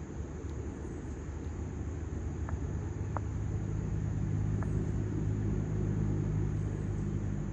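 Cat purring steadily close to the microphone, growing louder a few seconds in, with a few faint short ticks heard over it.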